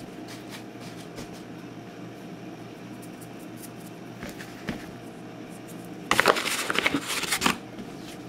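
Hands pressing and stretching pizza dough on a metal baking sheet: a few soft taps, then, about six seconds in, a louder burst of rattling and knocking lasting about a second and a half. A steady low hum runs underneath.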